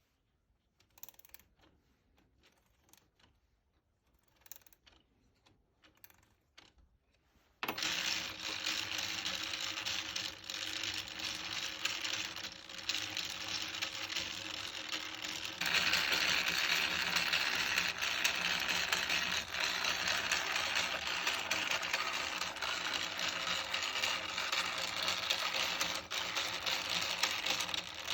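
Homemade wooden clockwork spring motor: a few separate clicks, then about seven seconds in it suddenly starts running with a continuous rapid mechanical clatter of gears and ratchet. It gets louder about halfway through and is still running at the end.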